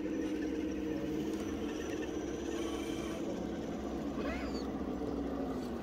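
The electric motor and gearbox of an RC rock crawler whine steadily as it crawls, the pitch wavering slightly with the throttle.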